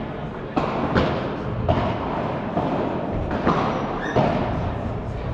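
Padel ball struck back and forth with rackets in a quick volley exchange at the net: about six sharp hits, under a second or so apart, ringing in a large indoor hall.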